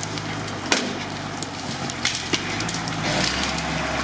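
Unimog truck's engine running steadily at low speed, its low rumble growing louder near the end, while twigs and branches crack and snap sharply over and over as it crawls through the forest.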